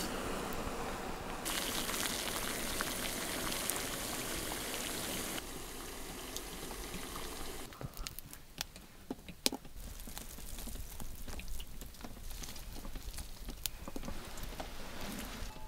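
A small fire burning in a tin-can trench candle, hissing and crackling. About eight seconds in it gives way to quieter scattered clicks and taps as viburnum berries are picked off their stalks and dropped into a clay mug.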